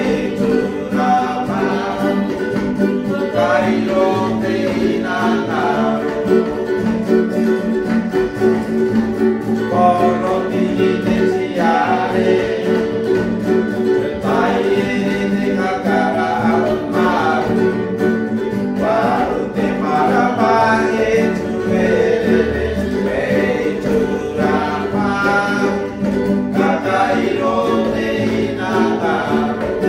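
Background music: a song with singing over plucked guitar or banjo.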